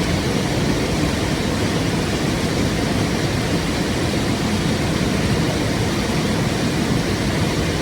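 River water rushing steadily, a continuous roar heaviest in the low end with no breaks or separate splashes.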